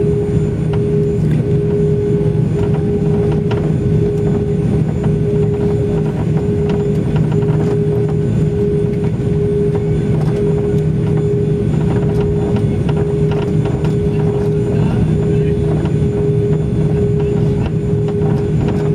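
Steady cabin drone inside an Airbus A340-600 taxiing on the ground, its four Rolls-Royce Trent 500 engines running at idle: a low hum with a higher steady tone on top.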